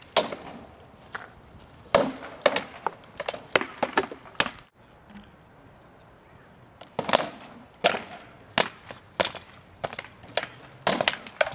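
Rattan swords striking shields and armour in sword-and-shield sparring: flurries of sharp, loud knocks, a pause of about two seconds near the middle, then a second run of blows.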